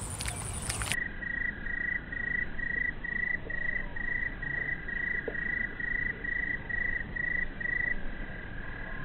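Insects calling in a marsh: an even, rhythmic chirping of about two to three pulses a second over a steady high whine. The chirping stops near the end.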